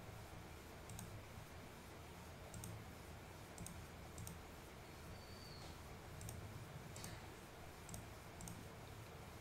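Faint computer mouse clicks, a dozen or so scattered single and double clicks, made while picking items from dropdown menus on a web page.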